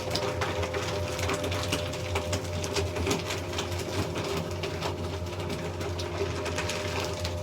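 Electric paper shredder running: a steady motor hum with dense, irregular crackling as its cutters chew through sheets of paper.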